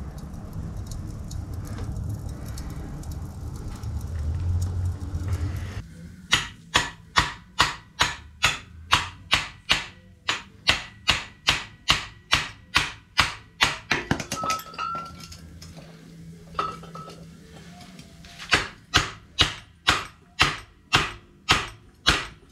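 Hammer blows on a punch, evenly spaced at about two to three a second, driving out welded-up cylinder liners from a Mercedes OM617 diesel engine block. A long run of strikes starts about six seconds in, stops for a few seconds, and picks up again near the end; a low rumble fills the first six seconds.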